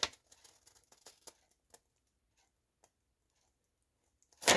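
Faint handling of a paper note and a padded plastic mailer: a soft crackle at the start and a few light paper ticks over the first two seconds, then near silence. A loud crinkling of the mailer starts right at the end.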